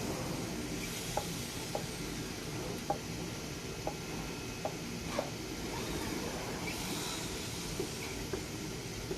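CNC digital knife cutting machine running as it cuts fabric: a steady hissing whir with light, sharp clicks about once a second.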